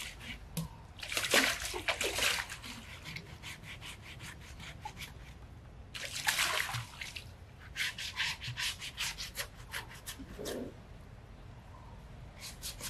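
A coconut husk scrubbed hard over an elephant's wet, rough skin: rasping scrapes in quick bursts of strokes, with short pauses between.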